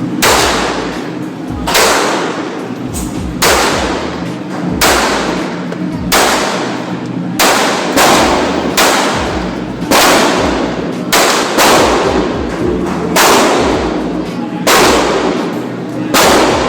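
Repeated gunshots, about fifteen sharp reports spaced irregularly roughly a second apart, each followed by a ringing tail.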